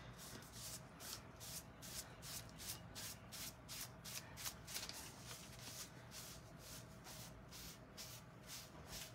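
Sponge rubbing and dabbing metallic acrylic paint onto a painted wooden board: a faint, even scuffing at about three strokes a second.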